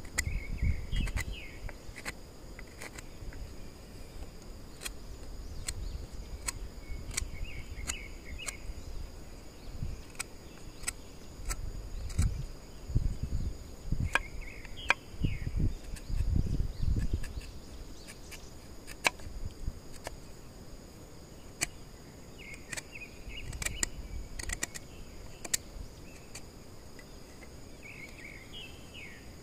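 Scattered sharp clicks and knocks with low thumps, from bamboo being worked by hand. Under them is a steady high drone of insects, and a short chirping call recurs about every seven seconds.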